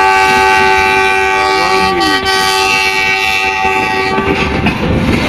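Diesel locomotive's air horn sounding one long chord that cuts off about four seconds in, over the rumble and clatter of a passing train's wheels.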